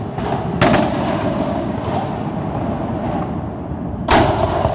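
Aerial fireworks bursting: two loud, sharp bangs about three and a half seconds apart.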